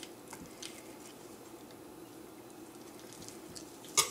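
Faint, wet handling of raw pork ribs as gloved fingers and a butter knife work under the membrane, with a few light ticks. About four seconds in, a sharp metal clack as the butter knife is set down.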